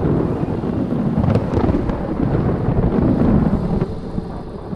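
Rolling thunder: a long low rumble that swells about three seconds in and then fades.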